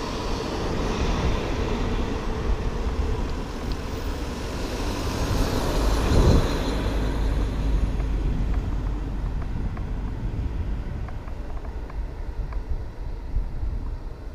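Wind rushing over the microphone and tyre hum as a mountain bike rolls along an asphalt road, swelling to a louder rush about six seconds in. A few faint ticks come in the second half.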